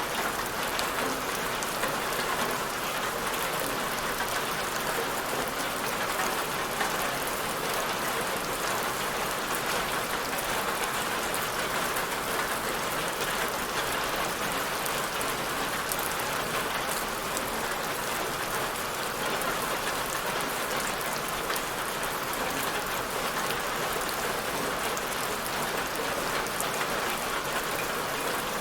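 Steady rain falling, an even hiss of drops on a surface, with fine drop patter throughout.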